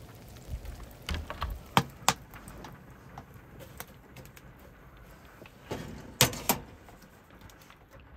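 Sharp metal clacks and knocks from the door and latch of a small steel Winnerwell wood stove being handled: two about two seconds in and a louder pair about six seconds in.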